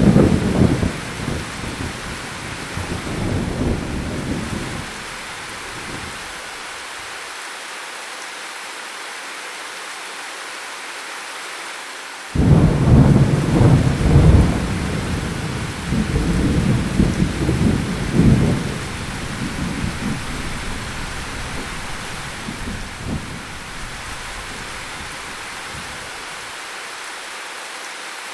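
Steady rain with two rolls of thunder. The first is already rumbling at the start and fades out about six seconds in; the second breaks suddenly about twelve seconds in and rolls on for some ten seconds before dying away.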